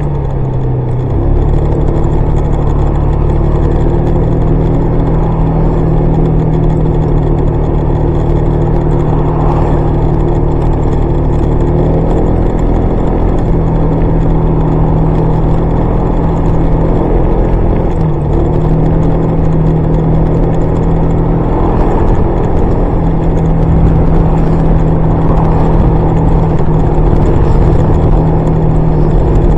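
Honda PCX125 scooter's single-cylinder engine running under way at a fairly steady speed, its note dipping briefly and picking up again a little past the middle, with a dense low rumble of road and wind noise.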